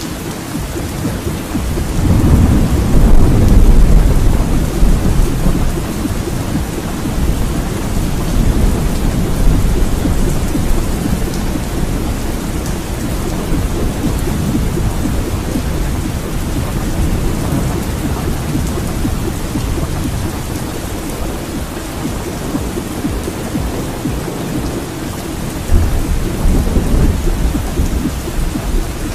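Thunderstorm: steady rain with low thunder rumbles, one swelling about two seconds in and lasting a few seconds, another breaking suddenly near the end.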